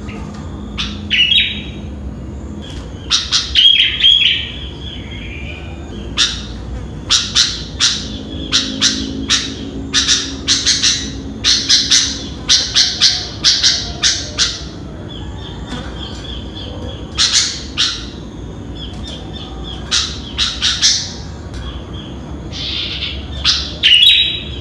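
Sooty-headed bulbul (kutilang) calling: loud, short chirps in quick runs, with gaps of a second or two between the runs.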